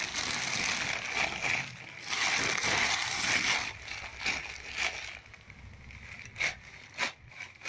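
Sheets of newspaper rustling and crinkling as a baby's hands crumple and pull at them: two long stretches of rustling in the first three and a half seconds, then scattered sharp crackles.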